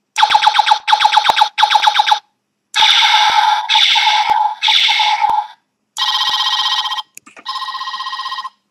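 Electronic sound chip in a toy figure's head playing alarm-like effects: two sets of three short electronic blasts, then two bursts of trilling telephone-style ringing.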